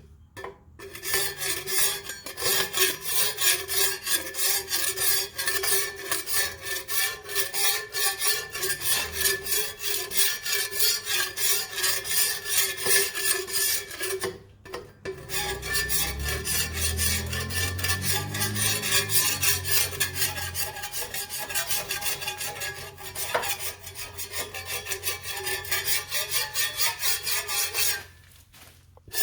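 Paint being scraped off a mini bike's metal frame by hand after paint stripper: rapid, steady rasping strokes, with a short break about halfway and a stop shortly before the end.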